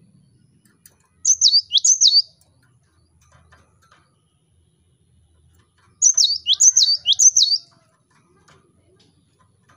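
Cinereous tit (gelatik batu) singing in two short, loud phrases of high whistled notes. Each note is a quick falling whistle with a short hooked tail. The first phrase has two notes, about a second in; the second has three notes, about six seconds in.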